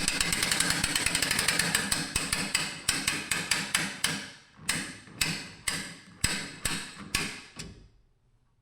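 Metal tool work on a boat trailer winch mount: rapid metallic clicking for the first few seconds, then about seven separate sharp metal strikes roughly half a second apart, each ringing briefly, stopping near the end.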